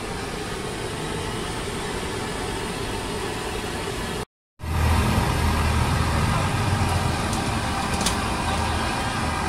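Steady street background with a vehicle engine running. After a cut about four and a half seconds in, a louder low engine rumble.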